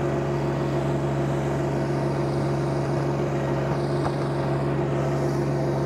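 John Deere 1025R compact tractor's turbocharged diesel engine running at a steady speed while pushing snow with a front blade.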